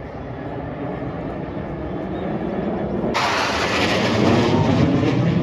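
Jet aircraft engine roar swelling steadily louder as it approaches, then abruptly becoming louder and brighter about three seconds in.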